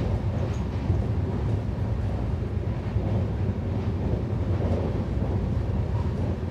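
Steady low rumble of a Shatabdi Express passenger coach running at speed, heard from inside the coach.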